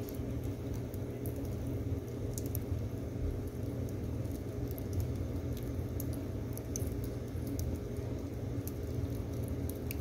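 Split firewood logs burning in a wood stove: scattered small crackles and pops over a steady low rumble.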